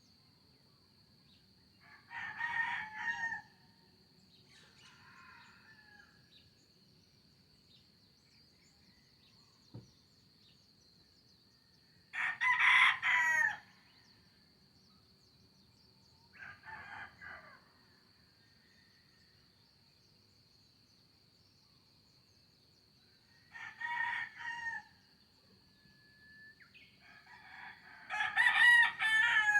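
Roosters crowing, about five times, some crows loud and near and others fainter and farther off. A faint, steady high-pitched whine runs underneath.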